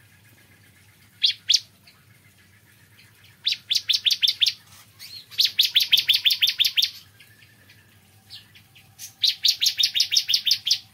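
Bar-winged prinia (ciblek kristal) singing: fast trills of sharp, high chirps, about ten a second, in bursts of a second or so with short pauses and a few single notes between them.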